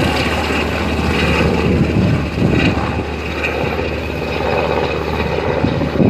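Helicopter flying close by: loud, steady rotor and engine noise over a constant low drone.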